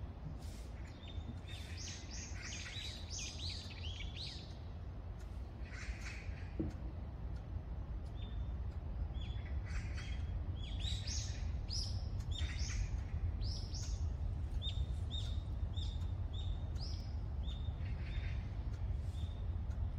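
Several wild birds chirping and calling in the trees, in clusters of quick high notes. In the second half one bird repeats a short high note about twice a second. Under it runs a steady low rumble.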